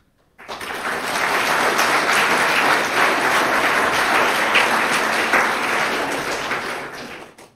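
Audience applauding: many hands clapping at once, starting suddenly about half a second in and dying away near the end.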